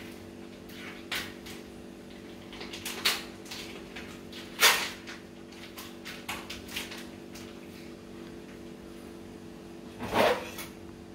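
Scattered rustles and clicks of a plastic-wrapped package being worked open with a kitchen knife, over a steady low hum. The sharpest click comes about four and a half seconds in.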